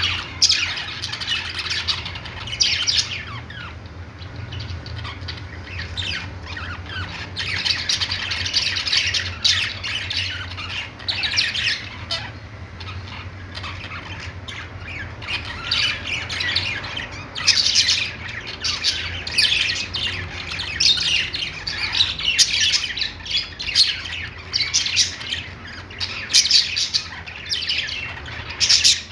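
A flock of budgies chattering, with many overlapping chirps and squawks, over a steady low hum.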